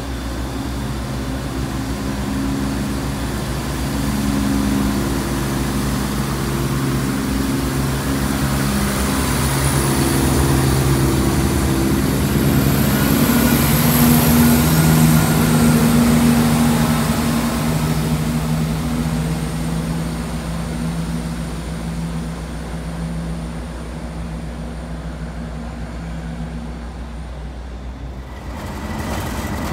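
CrossCountry Class 170 Turbostar diesel multiple unit running on its underfloor diesel engines as it passes close by. The drone grows louder to a peak about halfway through, then fades as the train draws away.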